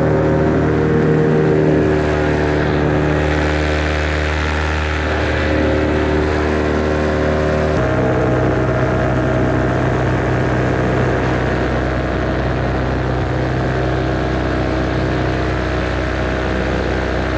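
Vittorazi Moster 185 single-cylinder two-stroke paramotor engine and propeller running steadily at power. Its note changes abruptly to a different, steady pitch about eight seconds in.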